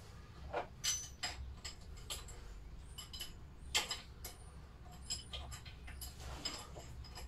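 Irregular sharp metal clicks and clinks of a spanner and bolts as a magneto is fitted loosely onto a Lister D stationary engine, the loudest about a second in and just under four seconds in.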